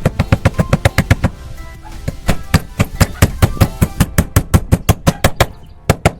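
A fast, even run of sharp knocks, about seven a second, with a short break about two seconds in, over faint background music.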